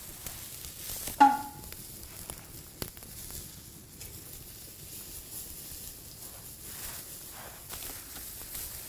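Octopus skewers sizzling over a burning rice-straw fire. About a second in, the wire grill basket gives one loud ringing clank against the metal grate, and a lighter tap follows a second and a half later.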